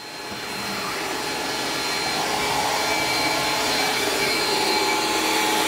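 Shop vacuum running steadily with a high motor whine, its hose nozzle sucking dust and rust debris off a rusted car floor pan. It fades in over the first second.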